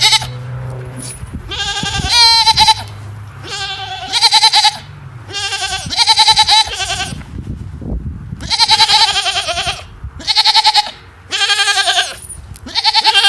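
A young goat making a repeated, high-pitched, fluttering chirp-like call, about seven calls, each less than a second long, coming every second and a half or so.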